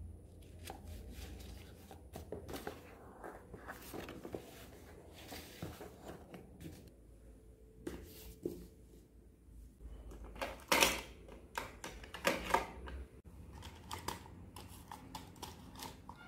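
Stationery handled on a desk: notebook pages and covers rustling and tapping, books being shifted, and near the end pens and a plastic ruler clicking in a pen cup. Two louder brief scuffs come a little past the middle.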